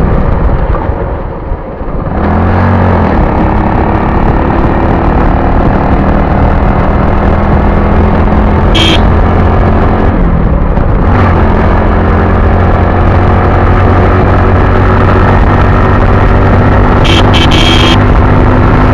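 Motorcycle engine running steadily under the rider while riding, heard loud from an on-bike camera. About a second and a half in the engine briefly drops off and then picks up again with a rising pitch, and it dips and climbs again around eleven seconds. A few short, sharp high sounds cut in near the middle and near the end.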